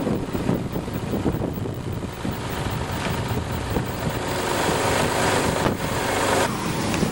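An engine running steadily, with rough rumbling noise underneath.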